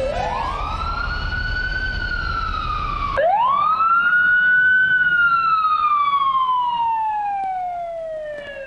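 Siren wailing in two long cycles, each rising quickly then sliding slowly down. The first is cut off about three seconds in by the next rise, and a low rumble beneath it stops there too.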